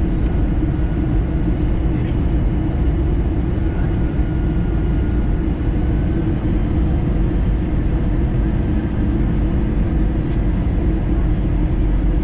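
Steady cabin noise of an Airbus A320 on final approach: the rumble of the wing-mounted jet engine and the airflow, heard through the cabin, running evenly with a few faint steady tones above it.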